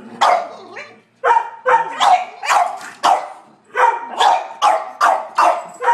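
Dogs (a Sheltie, a Collie and a French bulldog) alert-barking at a squirrel outside, in quick runs of sharp barks: two, a short pause, about five, another pause, then about six more.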